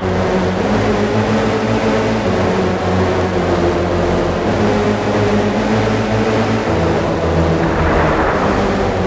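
Electronic music: a dense, noisy droning texture over low bass notes that shift in steps about once a second.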